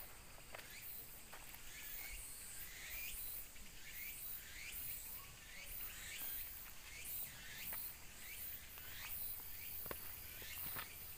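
Outdoor ambience of insects: a high buzz pulsing about twice a second, with many short rising chirps over it. A few footsteps tap near the end.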